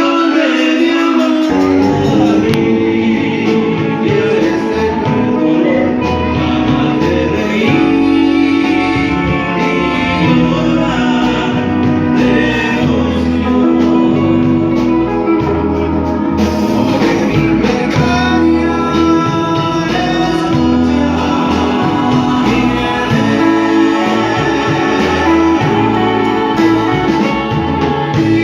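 Music: a song with singing over guitar, with a bass line and beat coming in about a second and a half in.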